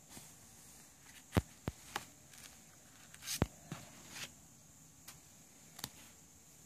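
Cardboard digipack CD case being unfolded and handled: a handful of light taps and knocks of card, with a short rustle of card a little past the middle.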